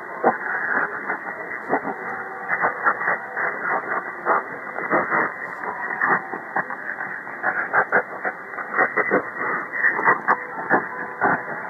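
Shortwave reception of Lao National Radio on 6130 kHz through a CommRadio CR-1 receiver in upper-sideband mode with a 1.8 kHz filter. The audio is muffled and cut off above about 2 kHz, full of hiss and frequent static crackles, with the weak broadcast under the noise.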